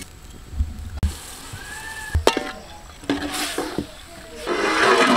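A metal ladle stirring a watery mutton curry in a large aluminium pot, with a few sharp clinks of the ladle against the pot and a longer, louder stretch of stirring noise near the end.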